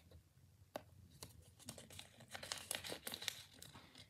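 Faint rustling and crinkling of crinkly craft material being handled, a scatter of small crackles that gets busier past the middle.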